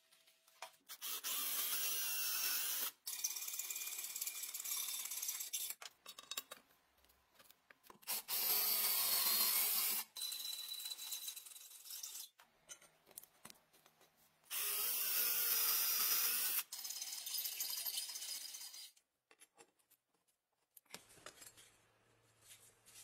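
Power drill running in bursts of a few seconds with short pauses between, drilling holes through a wooden handle scale.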